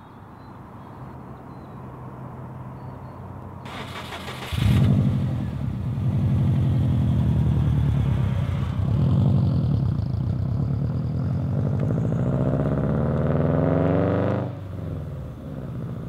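A 2002 Subaru WRX's turbocharged flat-four boxer engine starting: a short burst of cranking about four seconds in, then it catches loudly and runs with a low, even boxer rumble. Near the end the revs climb, then fall away suddenly.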